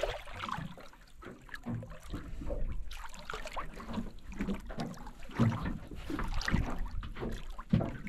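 Small boat on the water: irregular knocks and splashes against the hull over a low rumble of wind on the microphone.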